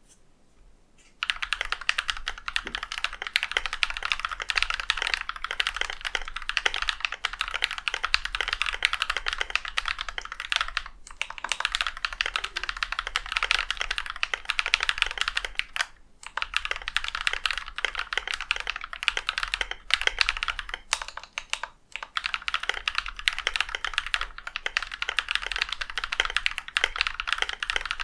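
Akko 3098 mechanical keyboard with Krytox-lubed Akko CS Blue switches, an aluminium plate, ASA keycaps and clipped, lubed stock stabilizers, typed on fast and continuously. The typing starts about a second in and breaks off briefly a few times.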